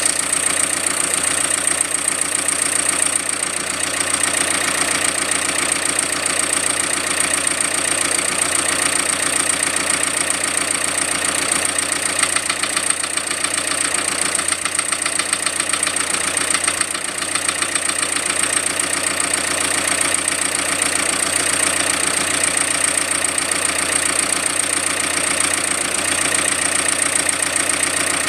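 Renault Kangoo 2 engine idling steadily with a fast, even knocking running through it: the strange knock the owner is trying to track down. A steady high-pitched whine sits over the engine sound.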